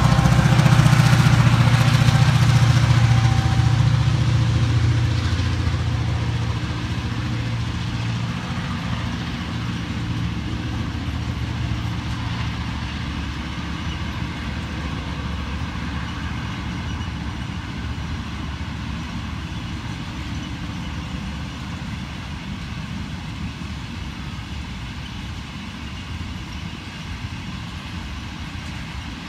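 Diesel locomotives hauling an empty cattle train pass by. Their engine drone is loudest in the first few seconds and fades over about a dozen seconds, leaving the steady rumble of the empty cattle wagons rolling past.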